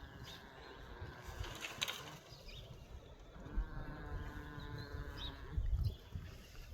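Goat snoring while resting: two long, drawn-out nasal tones, the first ending about two seconds in and the second from about three and a half to five and a half seconds, with a low rumble near the end.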